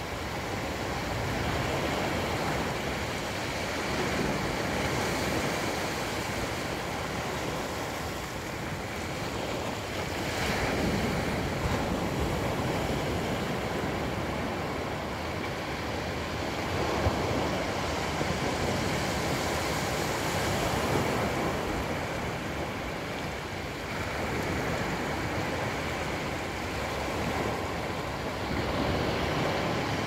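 Small waves breaking and washing up a flat sandy beach. The surf swells and eases every few seconds.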